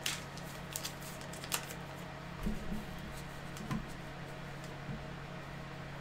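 Steady low hum with a few light clicks in the first couple of seconds and several soft knocks after that: small objects being handled at a desk.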